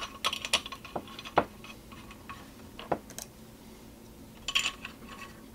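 Irregular light metallic clicks and clinks, with a small flurry near the end: aluminum bait-mold plates and pins being handled and fitted together on a workbench.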